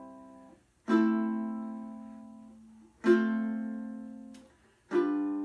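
Ukulele strummed once per bar with single downward strums, about two seconds apart, each chord left to ring and fade before the next. The chord changes between strums.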